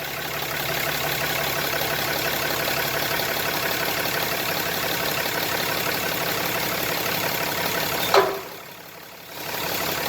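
The Ram 2500's 6.7-litre Cummins inline-six turbo diesel idling steadily. The sound drops away for about a second near the end, then resumes.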